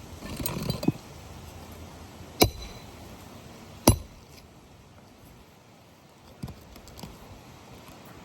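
Hammer striking a roof snake twice, sharp metal-on-metal hits about a second and a half apart, driving a roofing nail back into place under a lifted shingle. A short scraping rustle comes before the hits, and two light taps near the end.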